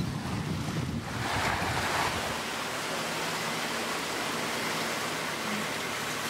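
Sea wind and water noise aboard a sailing boat under way: wind buffeting the microphone with a low rumble for about the first second, then a steady hiss of water.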